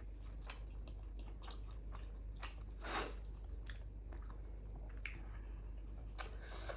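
A person chewing food close to the microphone: scattered soft wet mouth clicks, with one louder noisy burst about three seconds in.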